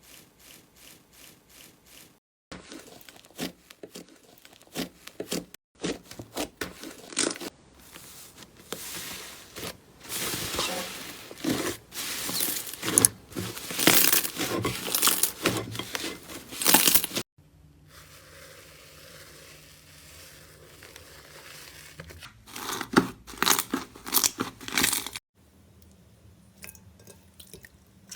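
Slime being squeezed and poked by hand, making crunchy crackling and tearing sounds over several short clips. The crackling is densest and loudest in the middle and again briefly near the end.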